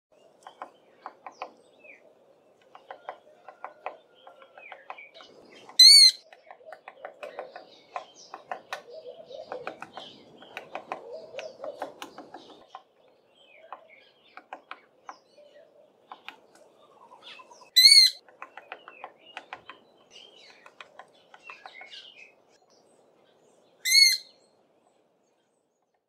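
Knysna woodpecker pecking at a branch in quick, irregular light taps while foraging for insects and larvae in small holes. Three short, loud, high-pitched calls break through the tapping, the last one after the pecking has stopped.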